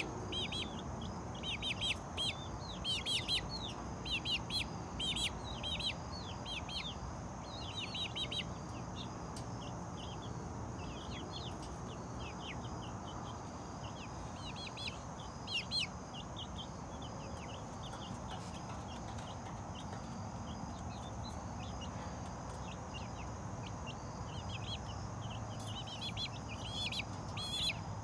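Chicks peeping: many short, high, falling peeps in quick bursts, busiest in the first several seconds and again near the end.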